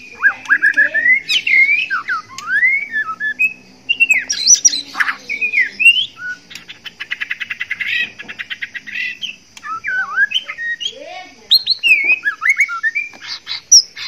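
Male white-rumped shama singing a loud, varied courtship song of slurred whistles and sweeping notes, broken in the middle by a fast rattle of clicks lasting nearly two seconds; the song of a male in breeding condition.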